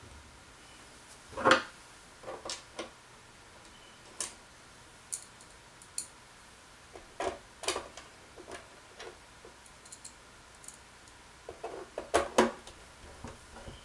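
Irregular clicks and knocks of hand tools and the plastic parts of an HP 24ES monitor being handled on a workbench during reassembly. The loudest knock comes about a second and a half in, and a quick cluster of sharp clicks near the end comes as the plastic back cover is pressed into place.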